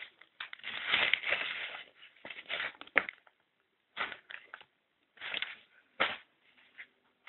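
Paper pictures handled and rustled close to the microphone in irregular bursts, loudest about a second in, with a sharp tap about three seconds in.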